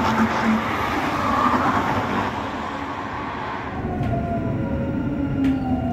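Tram running on its rails with a steady rushing noise. About four seconds in, the electric traction motors whine in several tones that fall steadily in pitch as the tram slows.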